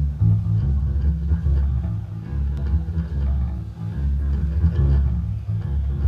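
Amplified electric bass guitar playing a steady run of low blues notes, with quieter electric guitar notes above it.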